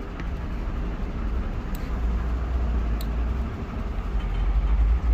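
Steady low background rumble with an even hiss of ambient noise, and two faint light clicks about two and three seconds in.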